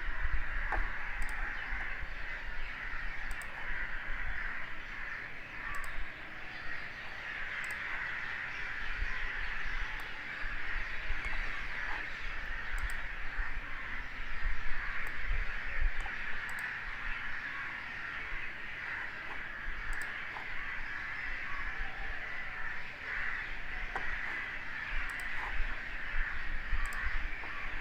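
Steady background noise centred fairly high, with a low rumble beneath it and faint, scattered clicks.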